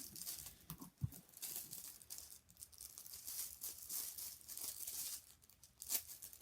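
Slime mixed with foam beads being squeezed and worked by hand, a crackly, squishy sound, with a single low thump about a second in.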